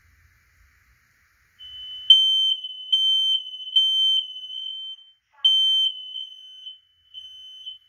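Smoke alarm sounding under test: a single steady high-pitched tone that starts about two seconds in and pulses louder and softer, breaking off briefly about five seconds in.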